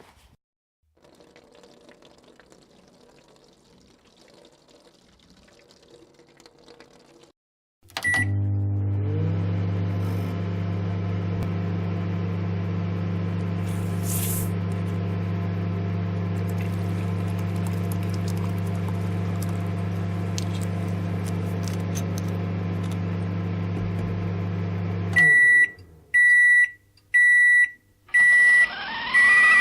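Microwave oven: a single button beep, then the oven runs with a steady hum for about seventeen seconds. It stops and gives five loud evenly spaced beeps to signal that the cycle is finished. Before the start beep there is only faint rustling.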